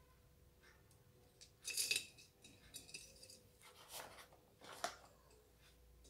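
A few short scraping and rustling handling sounds as hands work with small craft materials, the loudest about two seconds in, with further brief ones near four and five seconds.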